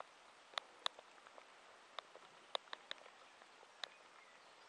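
Quiet outdoor background with about ten short, sharp ticks and clicks at irregular intervals.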